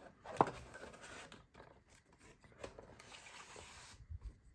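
Cardboard packaging rubbing and scraping as a small box is opened from the side, with a sharp tap about half a second in and a few lighter clicks and knocks.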